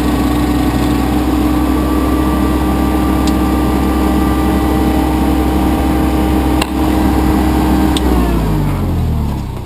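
Pelsue manhole generator/air compressor engine running steadily, then shut off about eight seconds in with a click, its pitch falling as it winds down to a stop.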